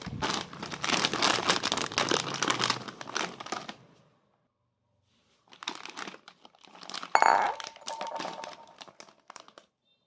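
Plastic and foil snack packets crinkling as they are handled, in two spells with a pause of about a second and a half between them. About seven seconds in there is a single knock with a brief ring.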